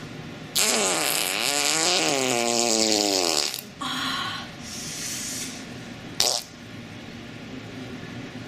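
Fart sound effects: a long, loud fart of about three seconds with its pitch wobbling up and down, then two shorter, softer ones and a brief sharp one about six seconds in.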